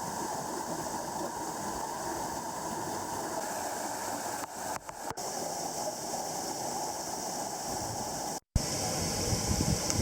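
Steady rushing noise like running water or surf, with brief breaks about five seconds in and a short dropout near the end.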